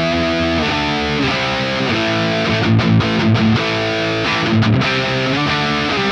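Distorted electric guitar played through a high-gain amp model in the Tonocracy amp-modelling plugin: a run of sustained notes, changing about once or twice a second.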